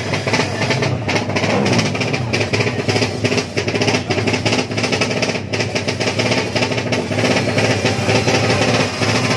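Racing motorcycle engine running loudly, a rapid, rattling train of firing pulses.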